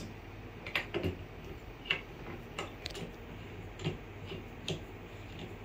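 Light, irregular clicks and taps of metal parts handled and fitted together: the clamp block of a boom stand microscope being assembled onto its rod and knob by hand.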